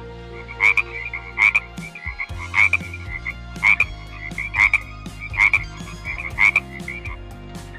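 Frog croaking: seven loud calls about a second apart, with fast chirring trills running between them. The trills stop shortly before the end.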